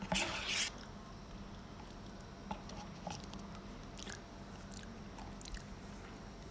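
Quiet eating sounds close to the microphone: a short noisy burst near the start, then faint scattered mouth clicks and chewing.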